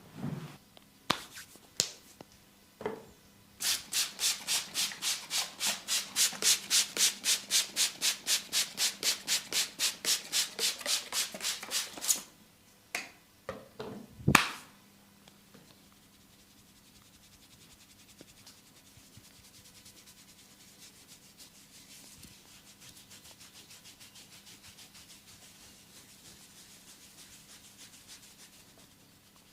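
Hands massaging oiled skin, rubbing in a fast, even rhythm of about five strokes a second for several seconds. A few sharp clicks follow, then a single loud snap, and after that only faint, soft rubbing.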